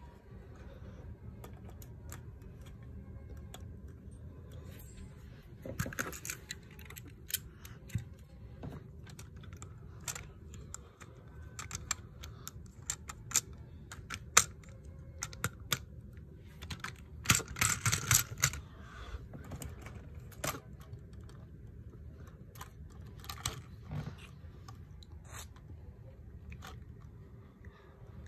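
Plastic Lego pieces clicking and clattering as they are handled: a scattered run of sharp clicks, with a busy cluster about two-thirds of the way through.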